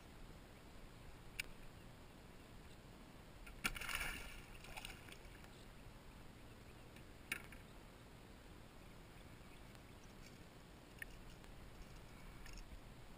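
A small hooked fish splashing at the water's surface as it is lifted out beside a kayak: one brief splash about four seconds in. A few sharp clicks before and after it.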